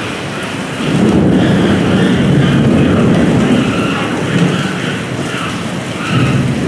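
Heavy rain pouring steadily, with a deep rumble that swells about a second in and eases near the end.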